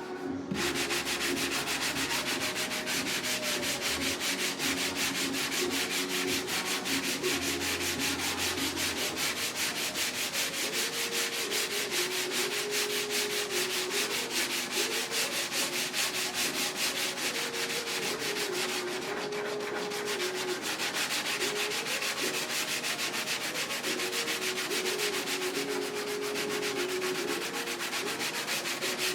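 Dual-action (DA) orbital sander running on a car body panel, a steady sanding hiss with a motor whine that wavers up and down in pitch as the pad is worked across the panel.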